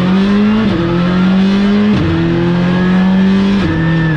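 Skoda Fabia Rally2's turbocharged 1.6-litre four-cylinder engine under full throttle, heard from inside the cabin, pulling hard up through the gears. It makes three quick sequential upshifts, from second to fifth, the pitch climbing and dropping at each one about every second and a half.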